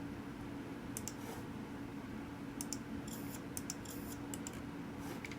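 A few light clicks and taps from a computer keyboard and mouse being worked, in short scattered groups, over a steady low hum.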